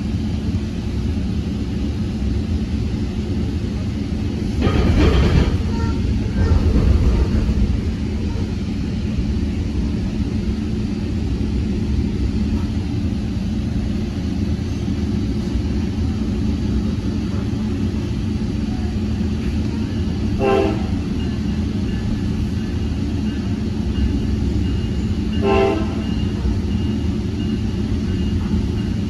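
Steady rumble of a Tri-Rail passenger coach riding along the track, heard from inside the car. It swells into a louder rushing stretch about five seconds in. Three short horn toots come in the later part.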